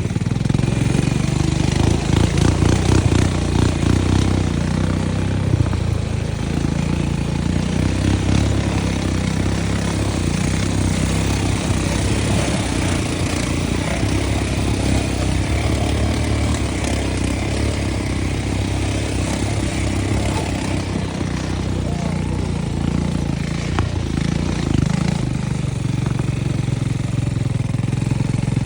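ATV engine running steadily, its low hum shifting a little in pitch now and then.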